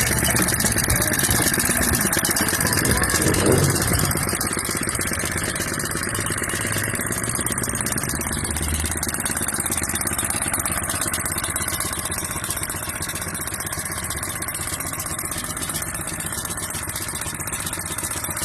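Jumping-jack tamping rammer's small engine running steadily, a little louder over the first few seconds and then settling to an even level.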